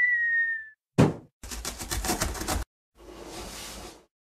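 Cartoon sound effects for an animated intro of a figure bursting out of a cardboard box. A short whistle-like tone dips slightly in pitch, then a sharp thump about a second in. A fast rattle runs for just over a second, and a softer hiss-like whoosh follows.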